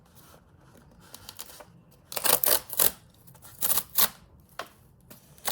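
Cardboard art-supply box being handled and opened by hand: a few short scratchy strokes of paper and cardboard, starting about two seconds in.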